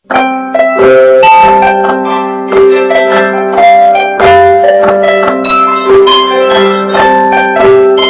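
Samsung phone alarm tone playing: a loud, plucked, harp-like melody of quick notes over held lower notes.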